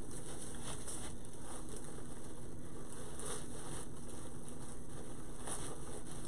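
Fabric ribbon loops of a bow rustling and crinkling a few times as they are pulled and rearranged by hand, over a steady background hiss with a faint low hum.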